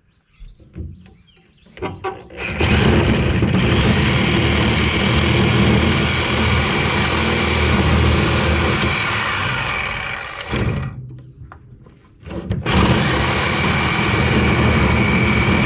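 A power tool cutting into a scrap air-conditioner coil. It runs steadily from about two seconds in, winds down and stops for a couple of seconds, then starts up again near the end.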